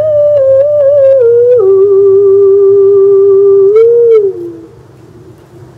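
Solo female vocal from a recorded ballad, holding one long sung note that steps down in pitch about a second and a half in and trails off a little past four seconds. After that comes a short quiet pause in the song.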